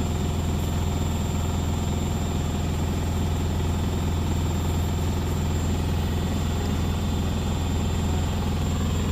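Beko WS832425s washing machine spinning at high speed: a steady low hum from the drum and motor, with no change in pitch or level.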